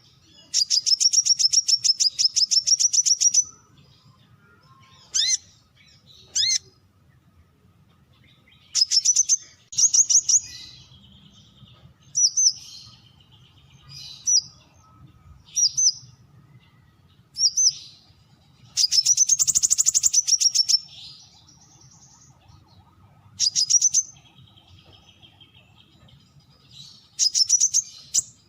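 Brown-throated sunbird calling: rapid runs of sharp, high chipping notes, the longest about three seconds, with single sharp upslurred notes between the runs.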